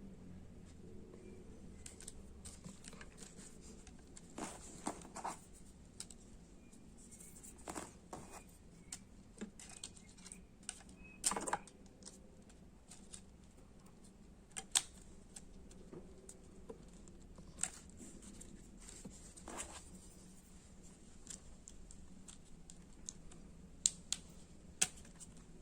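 Irregular light clicks and taps of small plastic parts being handled, over a faint steady hum.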